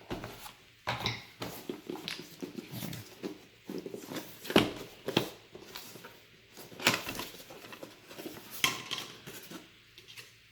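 Cardboard box and packaging of a CPU cooler being handled and unpacked: irregular rustles, clicks and light knocks of parts being pulled out and set down.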